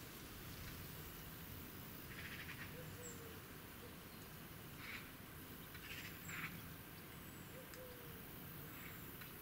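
Faint outdoor background: a steady low hiss with a few brief, soft sounds scattered through it.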